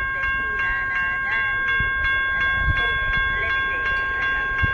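Railroad grade-crossing warning bell ringing with rapid, evenly spaced strikes, its ringing tones held steady between strikes: the crossing signals are activated for an approaching train.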